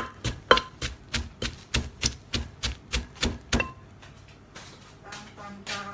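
Pestle pounding roasted chillies, shallots and sesame in a mortar: steady knocks, about three a second, that stop a little over halfway through.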